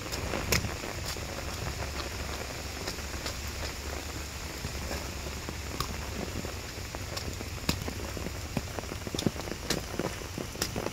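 Steady rain falling on leaves and grass, with scattered sharp ticks of drops striking close by and a low steady rumble underneath.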